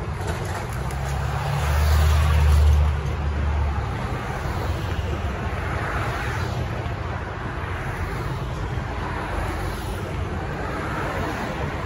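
Road traffic: cars and pickup trucks driving past one after another, their tyre noise swelling and fading. A deep engine rumble is loudest about two seconds in.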